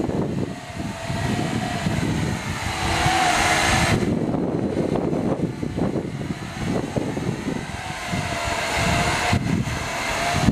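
TY923 camera quadcopter in flight, its motors and propellers whining, the pitch wavering up and down as the throttle is worked. Gusty wind buffets the microphone underneath.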